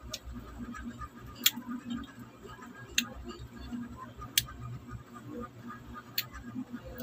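Close-up eating sounds of someone chewing and sucking santol pulp, with a soft wet murmur and four sharp lip smacks spread through.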